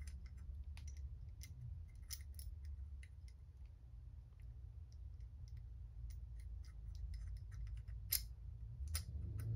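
Small, irregular metallic clicks and light scraping of steel parts: the locking wedge being worked between the locking flaps of a Walther K43 bolt by hand, with a couple of sharper clicks near the end, over a faint low hum.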